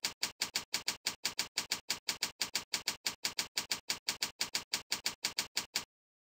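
Computer keyboard typing: a steady, even run of keystrokes, about six a second, that stops near the end.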